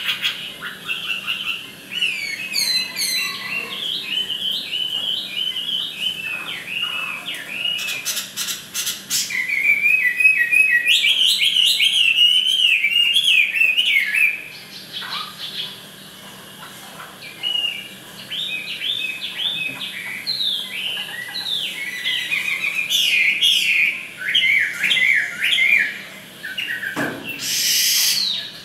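Chinese hwamei singing in rapid, varied chirping and whistled phrases, with a quieter gap of a couple of seconds midway. A short rush of noise comes near the end.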